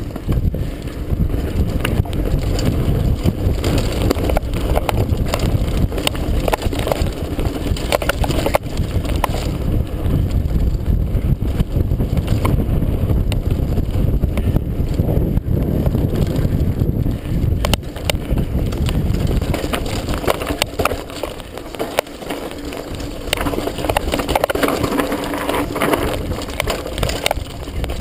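Mountain bike riding fast down a dirt trail: a continuous low rumble of tyres and bike, with frequent rattles and knocks as it goes over roots and bumps.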